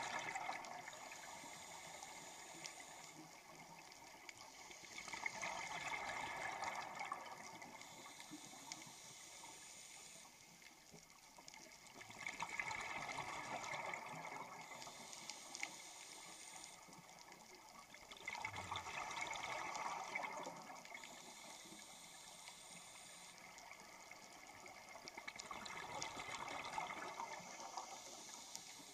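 A scuba diver's regulator breathing underwater: bursts of exhaled bubbles about every six to seven seconds, with a fainter hiss between them.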